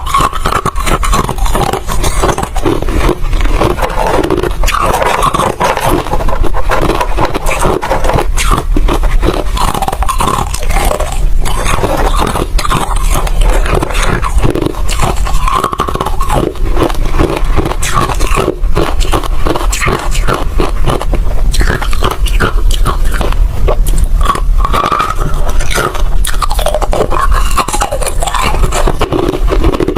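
Ice being bitten and chewed, a loud, continuous crunching made of dense crackles with no pauses.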